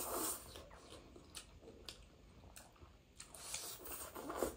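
Spicy instant noodles being slurped and chewed close to the microphone: a slurp at the start, scattered wet mouth clicks, and another slurp swelling near the end.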